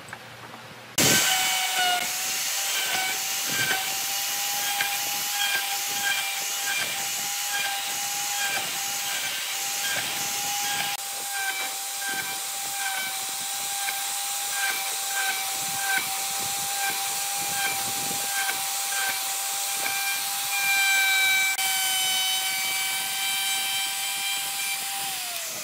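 An electric power tool's motor switched on and running steadily, a high whine over a hiss. It winds down in pitch near the end as it is switched off.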